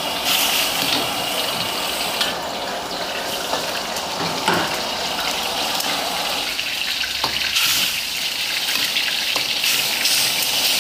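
Tom yam broth bubbling at a rolling boil in a wok, a steady hissing bubble, with a metal ladle stirring through it and clicking lightly against the pan a few times.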